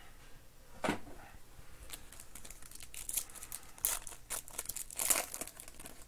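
Silver foil trading-card pack being torn open by hand, its wrapper crinkling and crackling, busiest and loudest in the second half. A single short knock about a second in.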